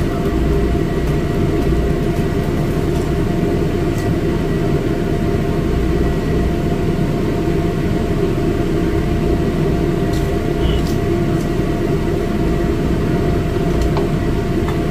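Steady machine hum in a commercial kitchen, a constant low drone with a thin high whine over it, and a few faint clicks.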